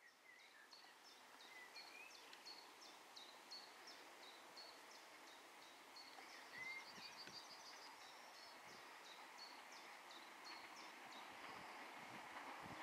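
Faint open-air quiet with birds singing: high chirps repeated two or three times a second and a few short whistled notes. Under them, the faint sound of a distant steam train slowly grows louder as it approaches.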